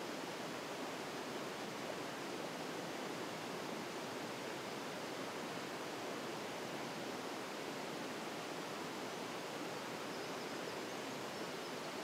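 Small mountain waterfall and its snowmelt stream splashing over rocks: a steady, even rush of falling and running water.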